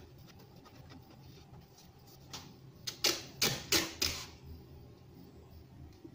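Duct tape being pulled off the roll in several short, loud rips in quick succession, about two and a half to four seconds in. Before that, a hand faintly brushes dust off the concrete plate's surface.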